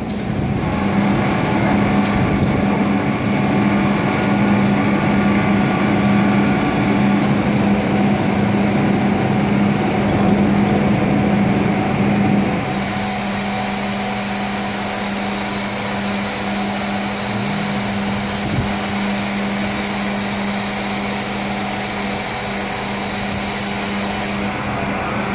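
Rear-loading garbage truck's chain-winch can lift and engine running loudly with a steady hum while the can is tipped over the hopper. A little over halfway through the sound turns steadier and slightly quieter, with a high whine, as the lift works to bring the can back down.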